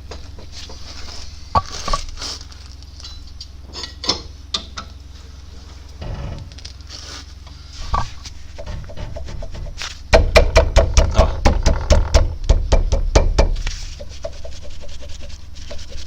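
Loose front brake caliper on a Peugeot 307 being shaken by hand. It gives scattered metal clicks at first, then a fast rattle of sharp knocks, about seven a second, for a few seconds near the end. This play is the source of the front-end clatter over cobblestones.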